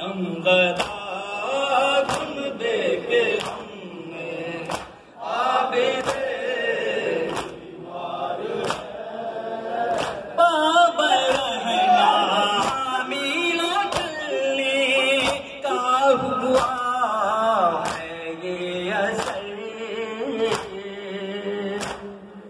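A crowd of men chanting a noha, an Urdu Shia lament, in chorus. It is set to a steady rhythm of sharp chest-beating (matam) slaps, about one every three-quarters of a second.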